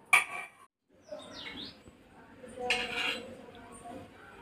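Metal kitchenware clattering: a sharp clank with a short ring right at the start, then a second, longer clatter about three seconds in.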